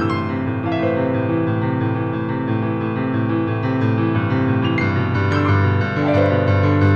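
Background piano music, sustained chords and notes at a steady loudness.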